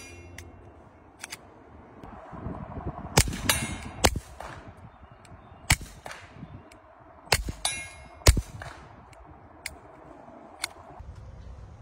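Suppressed Taurus TX22 .22 LR pistol with a Sig SRD22x silencer, fired about eight times at an uneven pace. Each shot is a sharp crack, and some are followed by a brief metallic ring.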